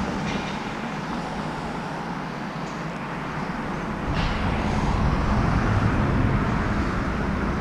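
City street traffic: a steady wash of passing cars, with a low rumble that swells about four seconds in as a vehicle goes by.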